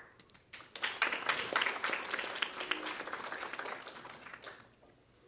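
Small audience applauding: clapping picks up about a second in and dies away near the end.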